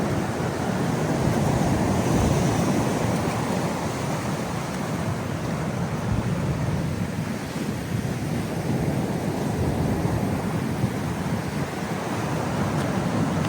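Heavy ocean surf, large waves surging and breaking on the shore in a steady, rumbling wash that swells and eases, with wind noise on the microphone.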